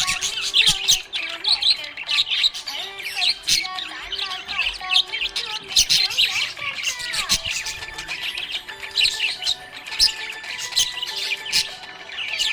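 Budgerigars chirping and warbling in fast, continuous chatter with occasional short squawks, over background music with held notes.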